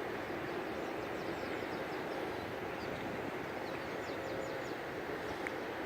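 Steady rushing of wind and water heard from a kayak on the sea, with a faint steady hum and many short, high, falling chirps of birds scattered through it.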